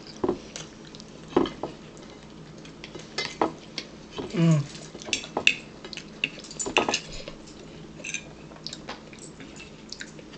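Metal fork clicking and scraping against a plate in irregular strokes as a meal is eaten, with chewing and mouth sounds in between.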